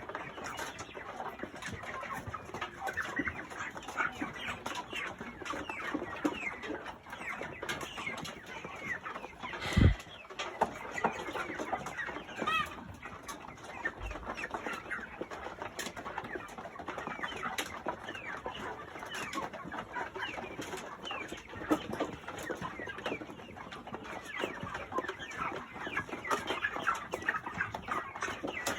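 A flock of nearly five-week-old broiler chickens cheeping and clucking continuously while they eat, in many short falling calls. A single low thump about ten seconds in is the loudest sound, with a softer one a few seconds later.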